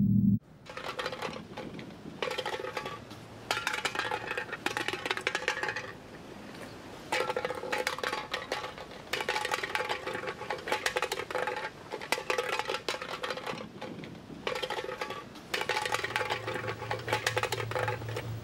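Metallic jingling in shaken bursts lasting one to three seconds, with short gaps between.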